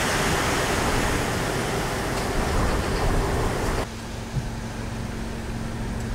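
Hurricane-force wind rushing and buffeting the microphone in a loud, steady hiss. A little over halfway through it cuts off abruptly to quieter wind over a steady low mechanical hum.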